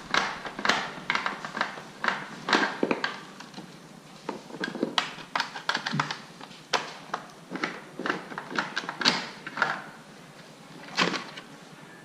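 Irregular plastic clicks, taps and knocks from a vacuum cleaner's casing being handled and taken apart, with a screw being undone and a side panel worked loose.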